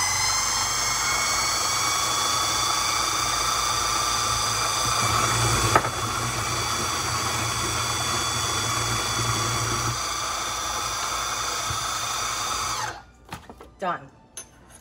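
Electric blender running at a steady high speed with a whining motor, puréeing an avocado sauce thinned with a little water. It switches off about 13 seconds in, followed by a few light clinks.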